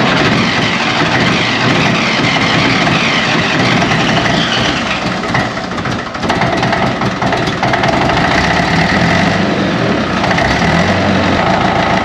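Old 554 tractor's engine running just after a cold start, kept going with Aerostart starting fluid sprayed into its air intake. It dips briefly about five and a half seconds in, then picks back up and runs on steadily.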